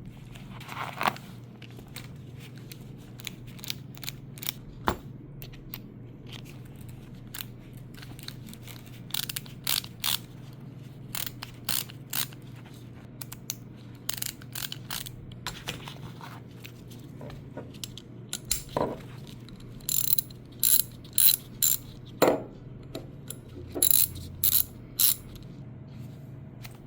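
Metal tools from a socket set being handled, with sharp clicks throughout and quick runs of ratcheting clicks from a socket ratchet handle, busiest near the end, over a steady low hum.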